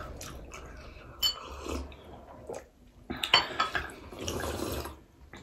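Glassware clinking on a table, one ringing clink about a second in, then soup being sipped and slurped from a small glass cup near the end.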